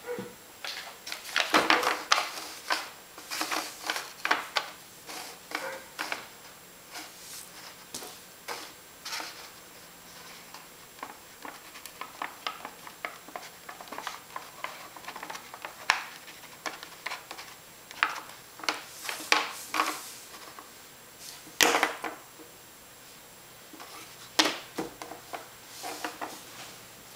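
Stiff paper rustling and crinkling as hands handle a folded paper box, in irregular crisp bursts that are quieter through the middle.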